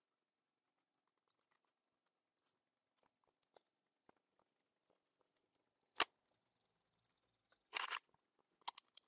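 Faint, sparse small metal clicks and scrapes of a brass pick working greased steel bearing balls into a ball nut's track, with a sharper click about six seconds in and a short scraping rustle just before eight seconds.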